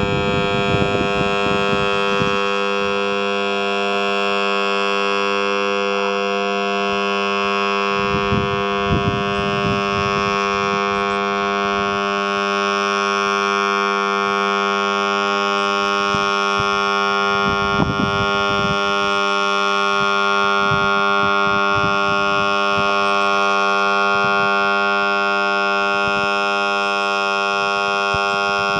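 Electric lawn mower motor with a burnt-out winding, powered on and buzzing loudly and steadily. There are a few short bursts of crackling about a second in, around eight to ten seconds in and again near eighteen seconds.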